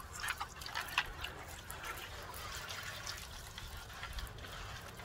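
Water from a pre-pressurised hand-pump spray bottle spraying onto a car's painted bumper to rinse off sand and grit, trickling and dripping off, with a few light ticks in the first second.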